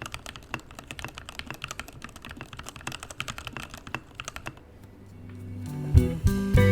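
Typing on a freshly built Keychron mechanical keyboard: a quick, uneven run of key clacks that stops about four and a half seconds in. Guitar-and-bass music then fades in and takes over near the end, louder than the typing.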